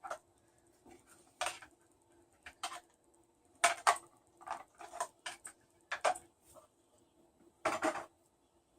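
Scattered clicks and taps of small kitchen containers being handled and set down, over a faint steady hum.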